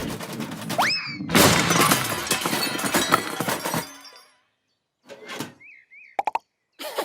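Cartoon sound effects: a quick rising whistle, then a long, clattering crash of breaking things that dies away after about two and a half seconds. After a pause come a few small squeaks and clicks.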